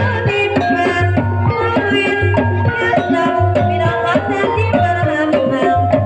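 Banyumasan gamelan music accompanying an ebeg dance: a kendang hand drum beats a steady pattern of deep strokes under melodic pitched notes.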